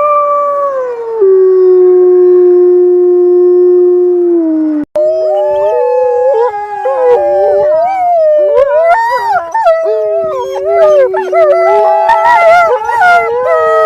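A single wolf's long howl that drops in pitch early on, holds steady and falls away at its end. After a sudden break about five seconds in, a chorus of several wolves howls together at different pitches, with many short yipping notes among the howls.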